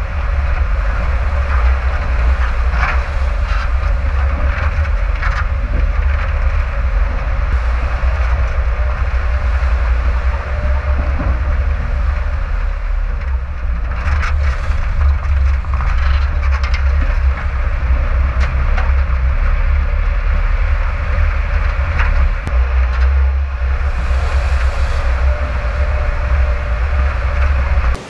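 Off-road vehicle driving along a rutted, waterlogged forest track, heard from a camera mounted on it: a steady heavy low rumble with a faint whine and scattered knocks and rattles.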